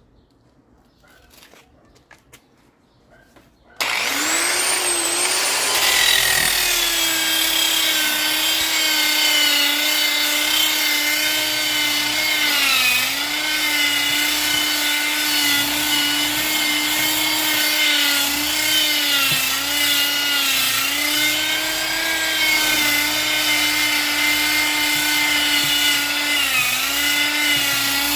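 Bosch wood router (tupia) motor switching on about four seconds in and running at speed with a steady high whine. Its pitch dips briefly several times. Before it starts there are only faint clicks.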